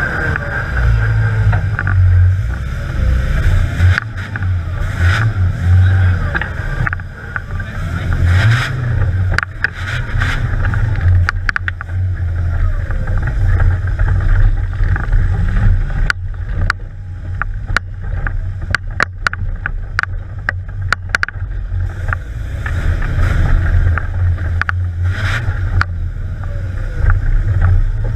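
Engine of an off-road trial car heard from inside the open cab, revving up and dropping back as the car works over rough ground. About halfway through, a run of sharp knocks and rattles from the body and chassis on rock.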